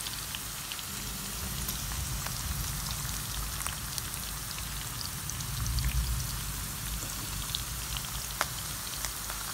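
Chicken breast pieces shallow-frying in hot coconut oil in a pan: a steady sizzle with many scattered pops and crackles. A low rumble swells briefly about six seconds in.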